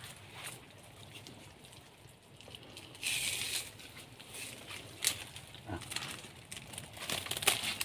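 Footsteps and rustling in soft mud and dry palm fronds. There is a short hiss-like rustle about three seconds in and a few sharp snaps near the end.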